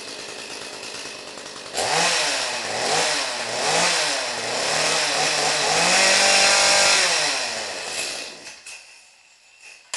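Echo CS-310 chainsaw's 30.5 cc two-stroke engine, warm and with no chain on the bar, idling, then revved up and down several times from about two seconds in and held at high revs. It winds down and stops about eight and a half seconds in.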